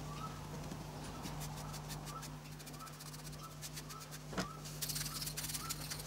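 A paintbrush sweeping parting powder off a packed green-sand mould and its hammer patterns: fine scratchy clicks that thicken into a crackly brushing hiss around five seconds in, with a sharp tap just before. A low steady hum and a faint short chirp repeating about every three quarters of a second run underneath.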